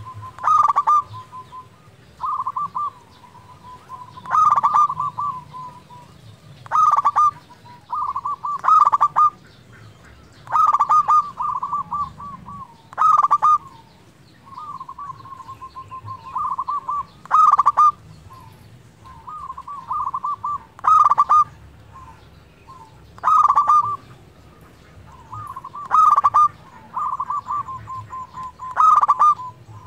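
Zebra dove (perkutut) singing its cooing song over and over: a quick run of rattling staccato notes, sometimes ending in a longer held coo, with a new phrase every one to two seconds.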